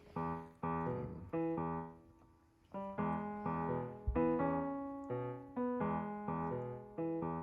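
Background piano music: a gentle run of struck notes and chords, each dying away, with a short lull about two seconds in.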